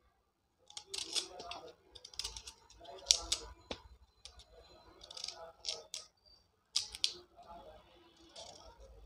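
A knife peeling the tough outer skin off a cauliflower stalk: repeated short scraping cuts, one or two a second, with a few sharp clicks, the loudest about three seconds in.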